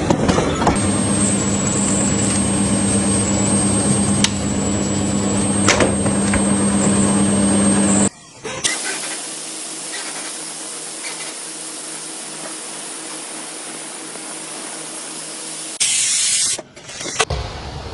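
Machines running in quick succession. First a steady hum with a high whine for about eight seconds, then after an abrupt change a steady hissing spray for about seven seconds, then a short loud burst of noise near the end.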